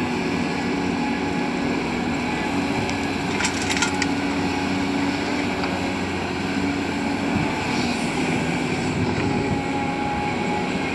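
Caterpillar 320D excavator's diesel engine running steadily as it works, its pitch drifting a little, with a brief rattle of clanks about three and a half seconds in.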